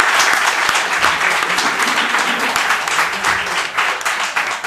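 Audience applauding, many hands clapping steadily and loudly.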